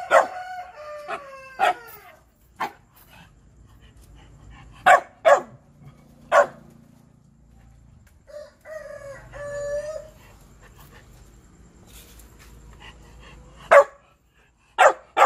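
Shiba dog barking for food in short, sharp single barks: a few near the start, a cluster about five to six and a half seconds in, and more near the end. Two drawn-out pitched calls sound faintly in the background between the barks.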